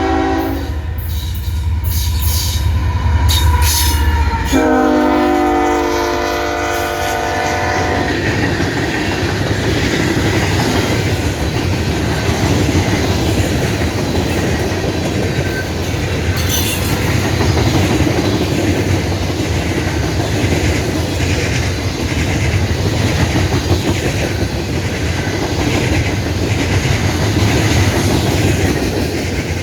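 CSX freight train passing at track speed: the diesel locomotives' deep rumble goes by, then the lead locomotive's multi-chime air horn sounds one chord for about three seconds around five seconds in. After that the freight cars roll past with a steady rumble and the clickety-clack of wheels over rail joints.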